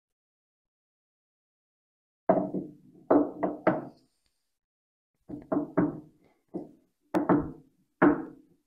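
Lathe chuck clunking against the freshly machined cast iron back plate as it is worked onto the locating boss by hand: about ten sharp metallic knocks in three quick groups, starting a couple of seconds in. The chuck has some play on the boss, which is called more than enough slop.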